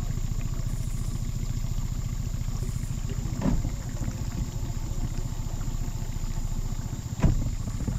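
Mercury outboard motor running steadily at low speed, with a short knock a few seconds in and a louder knock near the end.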